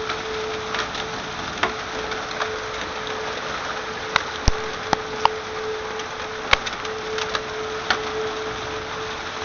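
Steady rain and wind with hailstones striking hard surfaces as scattered sharp knocks, a cluster of the loudest hits in the middle, over a steady hum.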